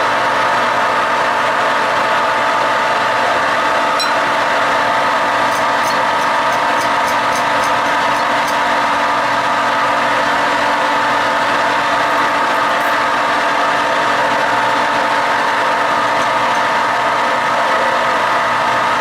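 Metal lathe running steadily, its motor and gearing giving an even hum with a whine. A run of faint, evenly spaced ticks comes between about six and eight seconds in.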